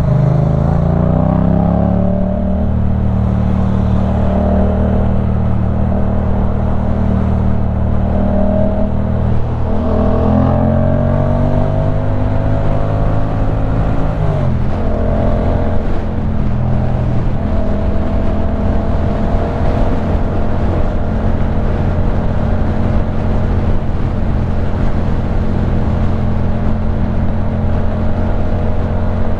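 2015 Yamaha MT-07's parallel-twin engine through a LeoVince One Evo full-system exhaust, ridden: the engine note climbs in pitch right at the start and again about ten seconds in, falls back around fourteen seconds, then holds a steady cruise.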